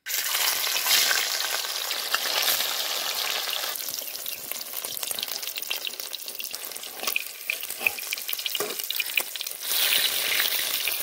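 Steamed banana-flower and egg pieces frying in hot mustard oil in a metal kadai: a steady sizzle with scattered crackling pops. It is loudest at first, settles to a softer crackle, then grows louder again near the end.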